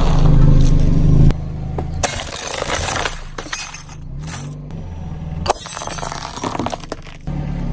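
A car engine runs for about a second, then the level drops and brittle things crackle, snap and crunch as they are crushed under a car tyre.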